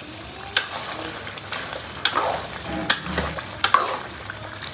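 A metal ladle stirs cream into a mutton white karahi gravy in a karahi over a gas flame, with the gravy sizzling. The ladle scrapes and knocks against the pan several times.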